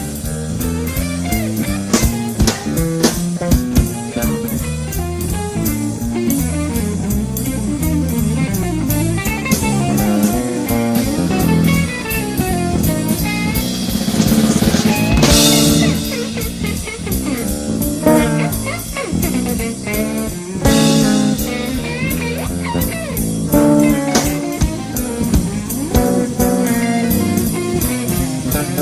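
Instrumental jam of electric bass and drum kit: a busy plucked bass line moving up and down its range over a steady drum groove, with a cymbal crash about halfway through.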